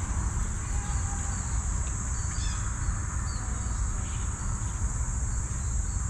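Outdoor park ambience: a steady high-pitched insect buzz with a few short bird chirps around the middle, over a constant low rumble.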